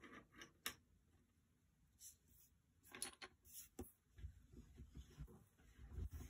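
Faint clicks and taps of wooden pencils being handled on a desk, then a pencil scratching on paper in short sketching strokes, starting about four seconds in, with soft bumps of the hand against the desk.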